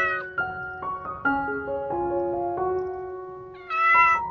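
Piano music playing a simple melody one note at a time, with two short cat meows, one trailing off at the very start and a louder one near the end.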